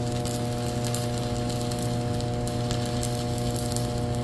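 Stick (shielded metal arc) welding with a 6013 electrode on a small 120 A inverter welder: the arc crackles and sizzles steadily as the bead is run.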